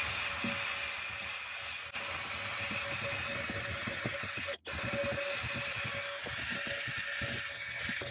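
Cordless drill spinning a wire brush against fibreglass, scrubbing the surface clean: a steady motor whine over a scratchy rasp, with a brief gap about four and a half seconds in.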